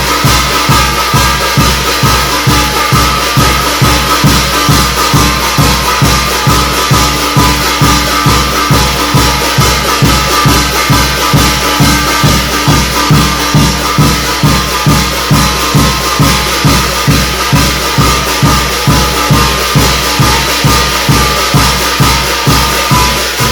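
Korean shamanic ritual percussion: drums struck in a fast, even beat of about three strokes a second, with a shimmer of cymbals and steady ringing tones above.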